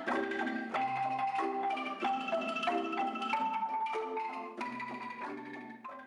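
Background music with a light, bouncy marimba or xylophone melody over a bass line, fading out near the end.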